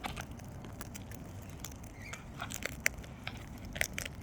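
Sulphur-crested cockatoo crunching food with its beak: irregular sharp cracks and clicks.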